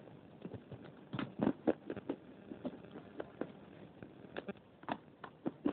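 Crunchy Punjab biscuits being chewed right at a lapel microphone held to the mouth: a string of irregular crisp crunches, loudest about a second and a half in.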